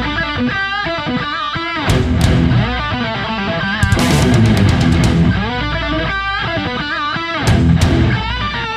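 Background rock music with distorted electric guitar playing riffs over bass and drums.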